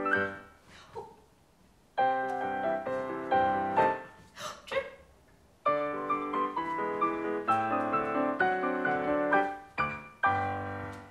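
Solo piano music for a freeze-dance game, stopping and starting. It halts just after the start for about a second and a half, plays for about two seconds, stops again for about a second and a half, then plays on.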